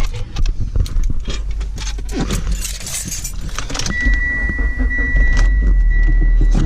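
Keys jangling with clicks and clatter. About four seconds in, a steady high electronic tone starts along with a low engine rumble.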